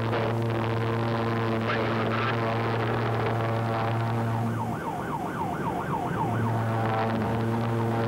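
Police siren in yelp mode, sweeping rapidly up and down about four times a second for a couple of seconds midway, over a steady low hum.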